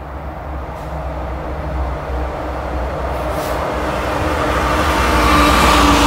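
Freight train's diesel locomotives approaching and passing close by: a low engine drone that grows steadily louder, with wheel and rail noise building as the lead units go past near the end.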